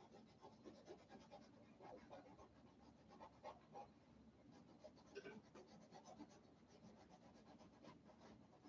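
Faint brush strokes of acrylic paint on a painting: short, irregular scratching and rubbing dabs, a few a second.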